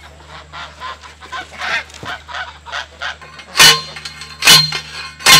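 A steel post driver slammed down onto a metal T-post three times, a little under a second apart, each a loud sharp clang, starting about three and a half seconds in. Geese honk in the background.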